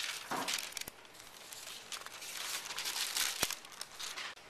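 Sheets of drawing paper and a thin translucent tracing-paper overlay rustling and crinkling as they are lifted and moved aside, with two light clicks along the way.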